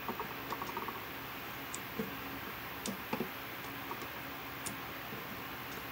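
Black vinyl electrical tape being pulled off its roll and wrapped around a metal outlet box: scattered light clicks and crackles from the tape and handling, over a steady hiss.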